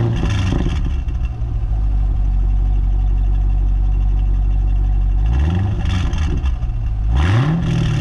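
A car engine idling steadily, then revved twice in short blips, each rising and falling back, in the second half.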